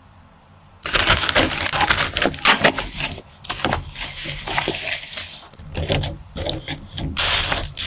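Packaging being handled: plastic wrapping, a cardboard box and a clear plastic cake cover rustling, crinkling, tapping and scraping in irregular spurts after a brief quiet moment at the start.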